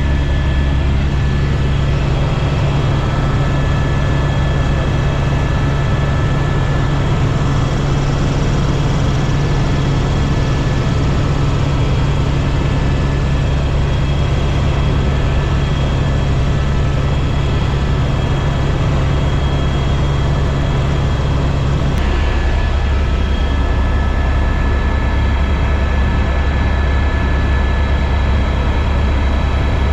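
Helicopter in flight: a steady low rotor drone with a high turbine whine over it. About two-thirds of the way through, the sound changes abruptly as one low hum drops out.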